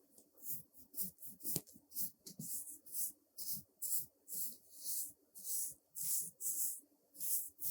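Brush bristles swept over a surface close to the microphone in steady, rhythmic strokes, about two soft hissing swishes a second.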